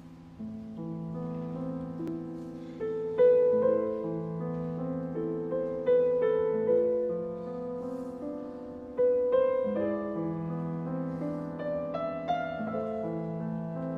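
Slow instrumental piano music: a melody of struck notes that ring and fade over sustained lower chords, with the loudest notes struck about three, six and nine seconds in.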